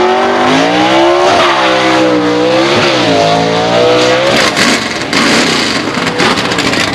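A 1957 Chevrolet station wagon drag car accelerating hard down the strip, its engine revving up through the gears with two quick shifts. About four and a half seconds in the engine sound drops away, leaving a steady noisy rush.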